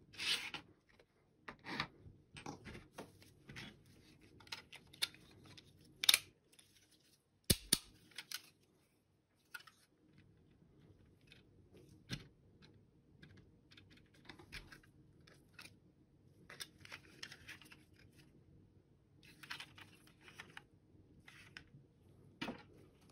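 Plastic parts of a computer mouse handled and fitted together by gloved hands: scattered light clicks and rustles, with a few sharper plastic clicks about six and seven and a half seconds in.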